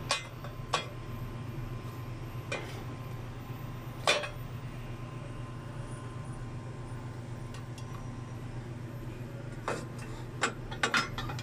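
Scattered clinks and knocks of parts being worked back into a frozen beverage machine's stainless steel barrel during reassembly: a few early, the sharpest about four seconds in, and a quick run of them near the end. A steady low hum sits underneath.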